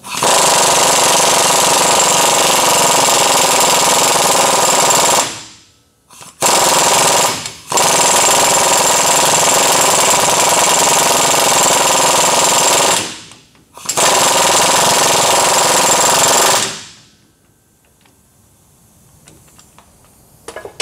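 Pneumatic impact wrench hammering on a differential pinion nut in four runs, the second one brief, the last stopping about three-quarters of the way through. It is running the nut down to crush the pinion crush sleeve and set pinion bearing preload.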